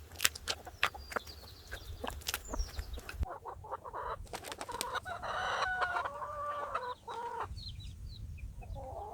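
Plymouth Rock chickens clucking, with a run of calls in the middle. Before them comes a quick string of sharp clicks.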